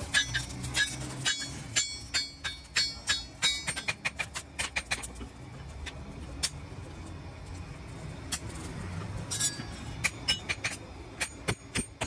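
Hand hammer striking a hot steel knife blank on an anvil block, several ringing metallic blows a second. The blows thin out to a few scattered strikes in the middle, then come quickly again near the end.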